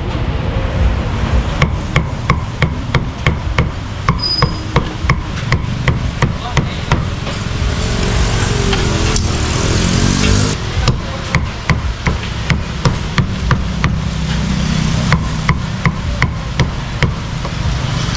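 A cleaver chopping roast beef on a thick round wooden chopping block: sharp, regular knocks at about two to three a second, broken by a short pause about halfway through.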